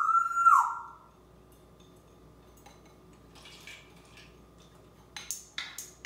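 A single loud whistle of about a second, holding one steady pitch after a short upward slide, from an African grey parrot. It is followed by quiet and then a few sharp clinks of dishes near the end.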